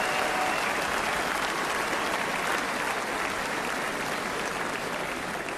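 Large arena crowd applauding, the clapping slowly dying down.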